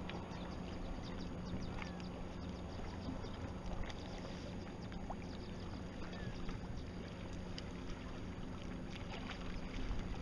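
Water lapping and splashing against the bow of a Precision 18 sailboat under way: a steady wash with many small, irregular splashes.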